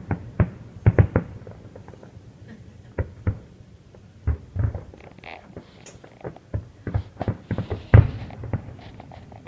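Fireworks display: a string of irregular bangs and pops, some in quick clusters, the loudest bang about eight seconds in.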